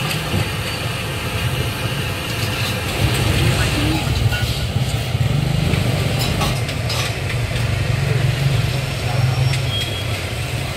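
Street-market ambience: a steady low engine rumble under background voices, with a few light clicks about halfway through.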